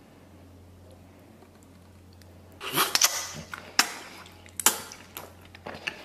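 A person eating close to the microphone: about two and a half seconds in, a loud slurp as a mouthful of saucy braised beef tendon and rice is sucked in from the bowl's rim, then wet lip smacks and chewing clicks. Before it, only a low steady hum.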